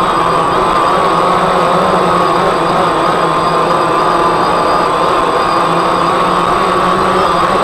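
DJI Phantom quadcopter's electric motors and propellers heard close up from the onboard camera: a loud, steady buzzing whine whose pitch wavers slightly as the motors hold the craft aloft.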